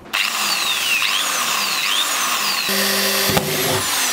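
Corded electric drill running, its bit boring a hole into wood, with a whine that falls in pitch several times.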